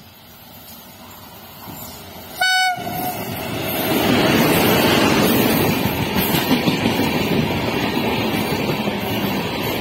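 WAP7 electric locomotive of a passenger express gives one short horn blast about two and a half seconds in, then passes close by with its coaches. The rumble and rush of wheels on rail builds quickly after the horn and stays loud and steady.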